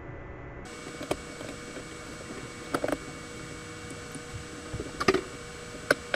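A handful of light, sharp clicks and taps as the parts of an airsoft AEG gearbox shell are handled and fitted together, over a steady low hiss.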